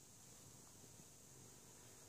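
Near silence: faint steady hiss.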